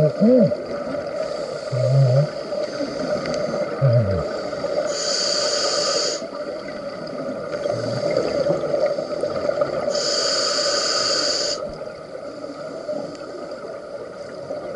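Underwater recording of a scuba diver's regulator breathing: two hissing inhalations, about five and ten seconds in, over a steady low hum and some bubbling gurgles in the first few seconds.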